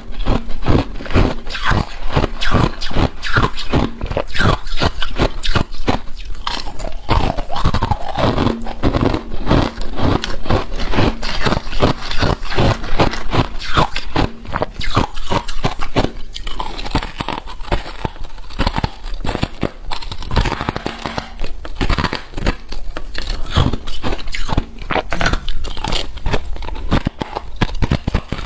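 Freezer frost crunching and scraping, close-miked: a dense, irregular run of crisp crunches, several a second, that keeps on without pause.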